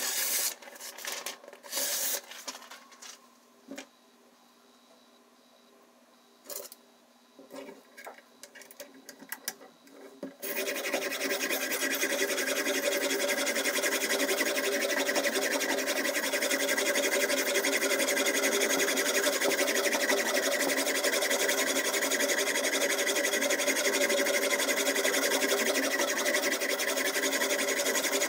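A few clicks and knocks as the stone holder is fitted to a Ruixin Pro RX 008 guided knife sharpener. Then, from about ten seconds in, steady continuous rasping as a diamond whetstone is stroked along the edge of the clamped steak knife.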